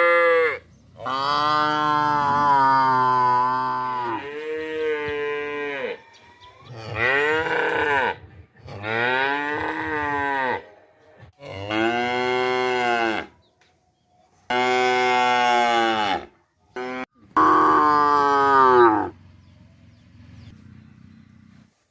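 Village dairy cows mooing: about seven long, loud moos one after another, each lasting one to three seconds, several of them falling in pitch as they end.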